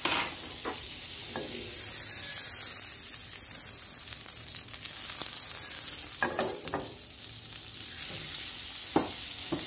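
Butter melting and sizzling in hot oil in a nonstick frying pan, a steady high hiss. Over it come a few short knocks and scrapes as the pan is tilted and a silicone spatula spreads the butter, the sharpest about nine seconds in.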